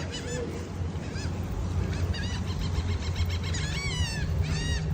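Birds calling over and over in short arched, honking notes, with a longer falling call about four seconds in, over a steady low rumble.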